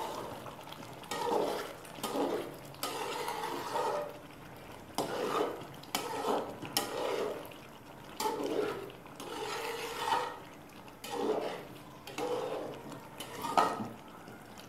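Spoon stirring thick chicken cream gravy in a cooking pot, scraping and clinking against the pot in strokes about once a second.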